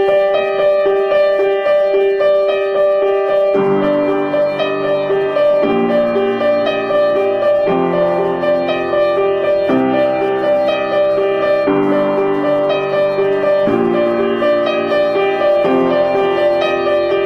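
Symphony mobile phone ringtone: a piano-like keyboard tune with a repeating high note over chords that change about every two seconds. Lower notes join about three and a half seconds in.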